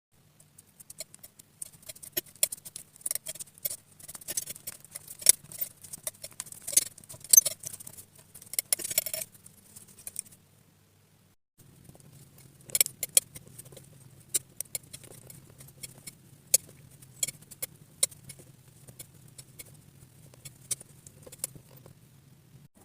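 Slime being squished and mixed by hand, making irregular sticky clicks, pops and crackles over a faint low hum. The clicks come thick at first, stop for a moment about ten seconds in, then go on more sparsely.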